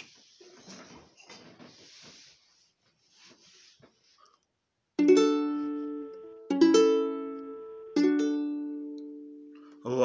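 Faint rustling and handling noise, then about halfway through three ukulele chords strummed roughly a second and a half apart, each left to ring and fade.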